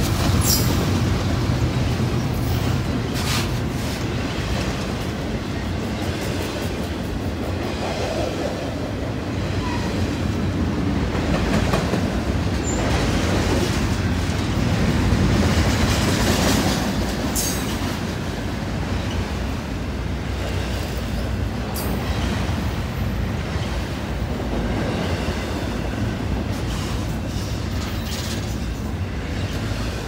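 Double-stack intermodal freight train's loaded well cars rolling steadily past close by: a continuous rumble of steel wheels on rail, with a few sharp clicks and clanks from the cars.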